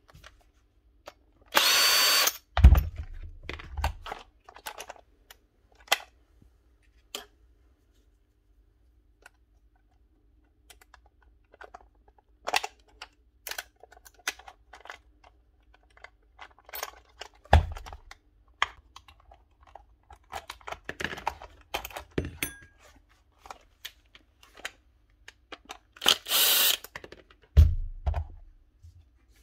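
A power drill-driver runs in two short bursts of about a second, one near the start and one near the end, as the nail gun is stripped down. In between come small clicks and taps of parts being handled and a few dull knocks of things being set on the bench.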